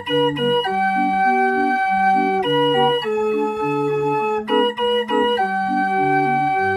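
Hand-cranked barrel organ (Drehorgel) with wooden pipes playing a tune: a sustained melody over a rhythmic accompaniment of alternating bass notes and chords.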